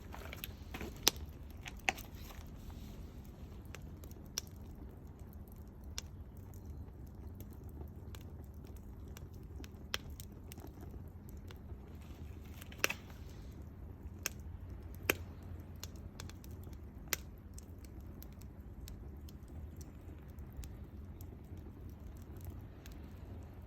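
Wood fire crackling, with irregular sharp pops a second or several apart, the loudest about a second in and around the middle, over a steady low rumble.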